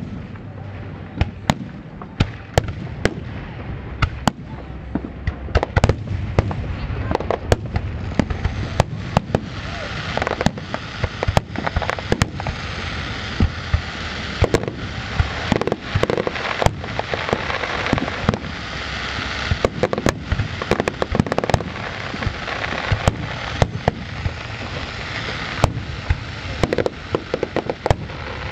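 Aerial fireworks going off in a public display: repeated sharp bangs throughout, with a dense crackling noise building from about a third of the way in.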